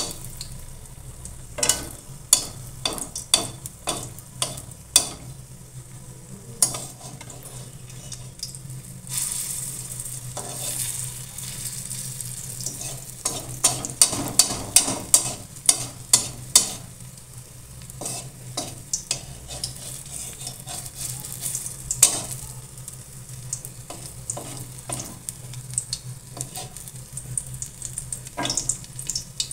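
Oil sizzling in a steel kadai as a lump of yellow vegetable mixture shallow-fries, with repeated sharp clicks and scrapes of a spatula against the pan as it is turned.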